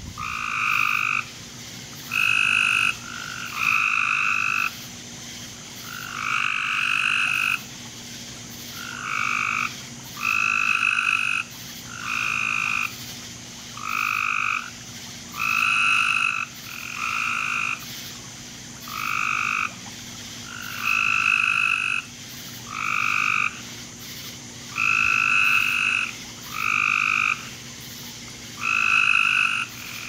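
Frogs calling in a steady series of calls, each lasting about a second and coming about every two seconds.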